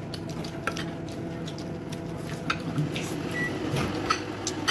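Fork scraping and clinking against a glass food container, a few light scattered taps over a steady low hum.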